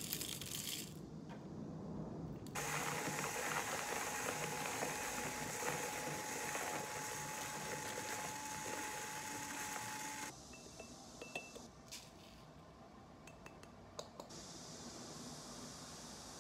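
Whole coffee beans rattling into a small electric coffee grinder, then the grinder running for about eight seconds with a steady whine as it grinds them, stopping abruptly. Light clicks and handling sounds follow.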